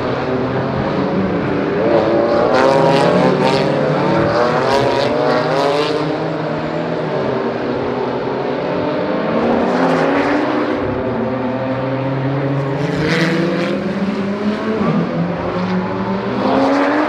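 Several GT4 race cars running together, their engines revving up and down through the gears, with a few sharp cracks.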